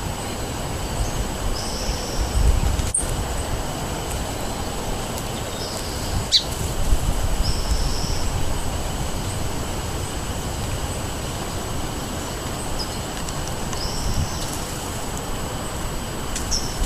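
Wind rumbling and buffeting on the microphone, with a songbird giving short high-pitched calls about four times, several seconds apart. Two sharp clicks stand out, one of them with a quick chirp.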